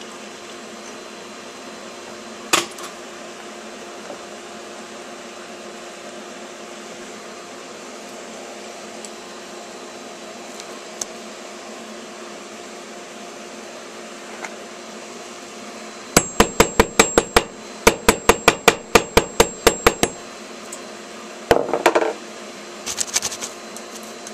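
Quick sharp knocks, about six a second, in two runs lasting about four seconds in all, with a few more short clusters after them, over a steady hum.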